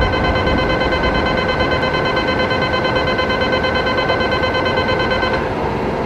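Station departure signal: a steady electronic tone with several high overtones, over the low rumble of the platform, that cuts off abruptly about five seconds in.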